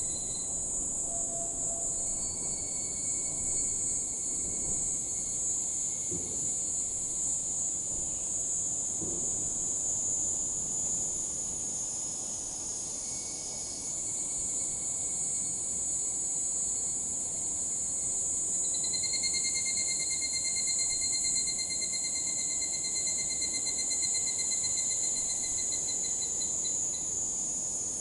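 Higurashi (evening cicadas, Tanna japonensis) singing: several long, rapidly pulsed trilling phrases, the longest near the end, over a steady high-pitched insect drone.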